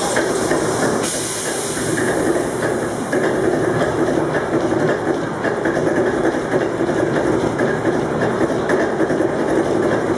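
Old inline multi-cylinder marine diesel engine running with a steady rhythmic beat. A loud hiss rides over it for the first four seconds or so.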